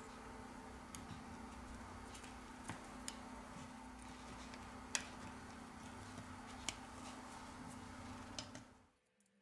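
Steel tweezers and small phone parts tapping against a smartphone's metal middle frame: a handful of scattered, sharp little clicks, the loudest about five seconds in. Under them runs a steady low hum, and all of it cuts off suddenly near the end.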